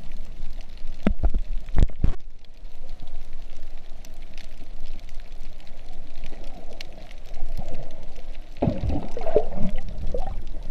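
Water heard by a GoPro filming underwater: a muffled low rumble of moving water, with a few sharp knocks in the first two seconds and a burst of bubbling gurgle about eight and a half seconds in.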